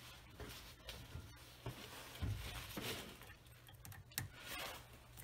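Faint rustling and a few light clicks of a gloved hand working around an engine bay, over a low steady hum.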